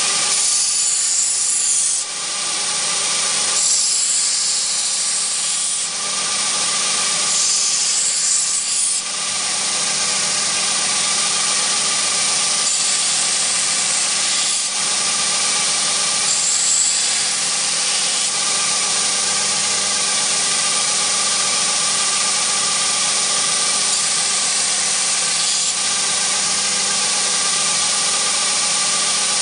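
Belt grinder running steadily while a steel knife blade is ground against the abrasive belt on its contact wheel, a constant motor hum under a grinding hiss. The hiss grows louder in repeated passes of a second or two, several of them in the first ten seconds.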